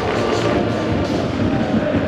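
A large crowd of football supporters singing a chant together in the stands, many voices holding the tune over a dense crowd roar.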